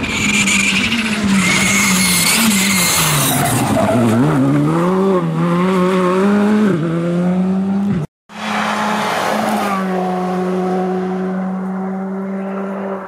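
Skoda Fabia R5 rally car's 1.6-litre turbocharged four-cylinder engine revving hard, its pitch climbing and dropping repeatedly with throttle and gear changes, with tyres squealing in the first few seconds. After a sudden break about eight seconds in, the engine holds a steady high pitch that slowly fades.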